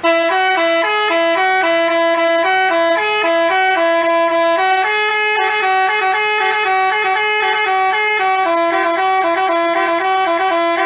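Telolet basuri bus horn playing a melody: a quick run of clear horn notes stepping up and down in a tune at a steady loud level.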